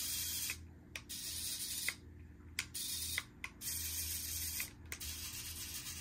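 Tiny electric drive motors of a 1/64-scale toy RC excavator whirring with its tracks spinning freely in the hand, starting and stopping about five times as the remote's drive buttons are pressed and released.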